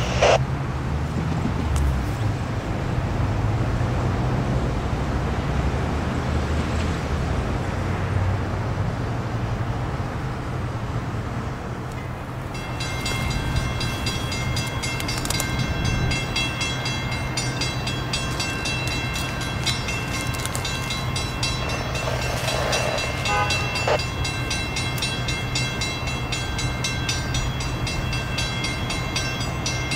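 Loram rail grinding train grinding the rails as it moves along the track: a steady low engine drone under a noisy hiss, with a short loud burst right at the start. From about twelve seconds in, a set of steady high whining tones sits over it as the grinder comes closer.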